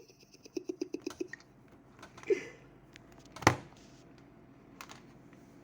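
Cartoon sound effects: a quick fluttering vocal sound fades out in the first second, a short pitched squeak comes a little after two seconds in, then a sharp click, the loudest sound, about a second later, followed by a faint tick.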